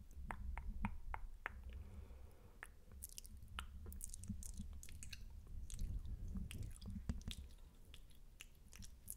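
Wet, spitty mouth sounds made close to a microphone: sticky clicks and smacks of lips and tongue. They come as a quick run of about four a second at first, then scattered through the rest.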